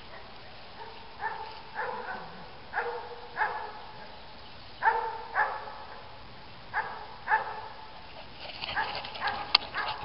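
German Shepherd puppy giving short, high barks in pairs, about four pairs, then rustling and scuffling in grass and brush near the end.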